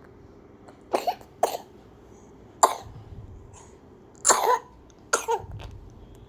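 A two-month-old baby with a cough and cold coughing: about five short coughing bouts, some in quick pairs, spread over six seconds.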